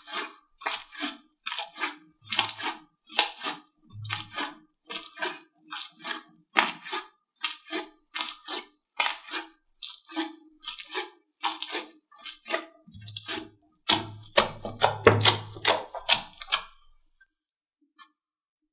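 Slime being pressed and squeezed by hand, giving a run of sharp pops and crackles about two a second. They crowd together and grow louder before stopping near the end.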